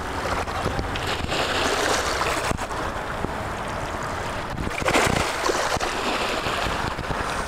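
Sea surf washing in with wind buffeting the microphone, in a steady rushing noise that swells louder a little before the five-second mark, with a few faint knocks.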